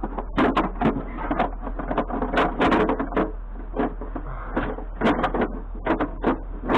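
Rapid, irregular knocking and clattering, a few hits a second, as scrap is being knocked apart, over a steady low hum.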